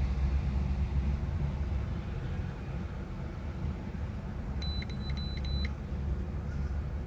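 Infiniti G35's 3.5-litre V6 idling with a steady low rumble; about four and a half seconds in, a quick run of high electronic beeps lasts about a second.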